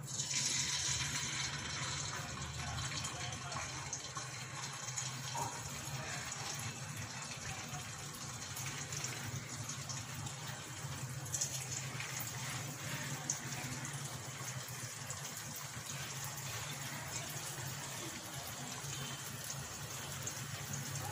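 Semolina and wheat-flour batter deep-frying in hot oil in a kadai as halka tatlisi dough is piped in: a steady sizzle with faint crackles, starting suddenly as the first dough hits the oil.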